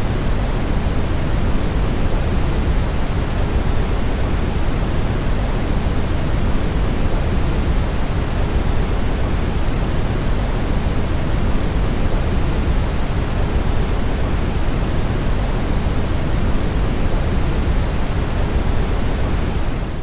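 Brown noise: a steady, unchanging noise with most of its weight in the low end, heard as a deep, even rush.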